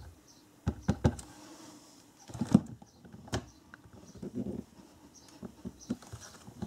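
Scattered taps and knocks of hard plastic as a stamp is inked from an ink pad and the Stamparatus stamp-positioning tool is closed and pressed onto the card. The loudest knock comes about two and a half seconds in, followed by lighter clicks.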